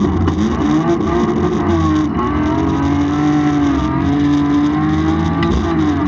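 BMW 328i's straight-six engine heard from inside the cabin, driven hard through a run of bends: the engine note dips briefly at the start, near two seconds and near four seconds as the throttle is eased, and climbs again each time.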